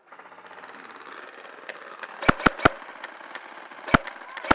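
Airsoft gun shots: three quick sharp cracks about two and a half seconds in, then single shots near four seconds and at the end, over a steady rushing background noise.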